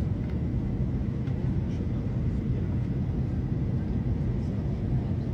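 Steady cabin noise inside a British Airways Airbus A321 airliner: an even low rumble of engines and airflow, with a faint thin high tone running under it.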